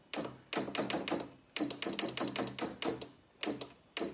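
Janome XL601 computerised sewing machine beeping at each press of its needle-position key: about fifteen quick presses in a few bursts, each beep with a short buzz as the needle is stepped across toward the far left.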